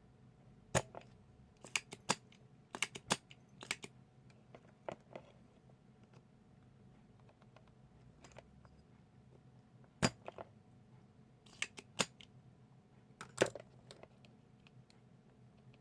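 Scattered sharp clicks and taps of small hand tools against the metal leaf contacts of a blender speed-selector switch as a contact is desoldered, in irregular clusters with quiet gaps between.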